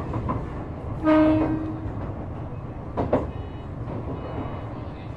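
Shizuoka Railway A3000-series electric train heard from inside the car, running with a steady rumble. About a second in, the train's horn sounds one short blast, the loudest sound here. A knock from the rails follows, and the high whine of the Toyo IGBT VVVF inverter comes in from about the middle.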